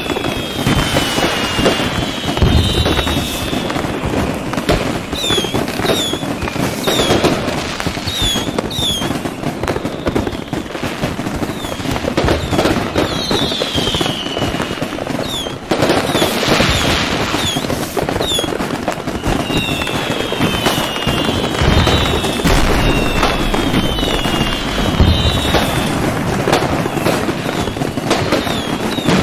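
Fireworks display: rapid pops and bangs all through, with many short falling whistles from whistling shells, and a brief break about halfway.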